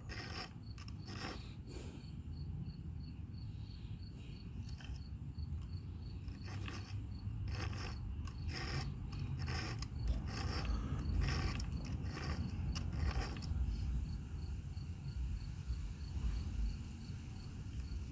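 Hand file rasping across the cutter teeth of a chainsaw chain in short single-direction strokes, irregularly about once a second. A cricket chirps steadily in the background.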